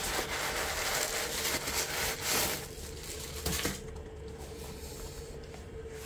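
Packing tissue paper rustling and crinkling as it is handled and pulled from a new shoe, along with hands rubbing on the shoe. The rustling stops about two and a half seconds in; a single light knock follows a second later, then only faint handling.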